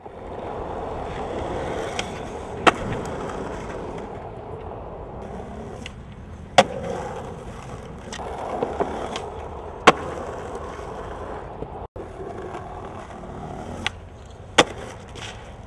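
Skateboard wheels rolling on asphalt, broken by sharp clacks of the board hitting the ground on tricks; the loudest come about three, seven, ten and fifteen seconds in.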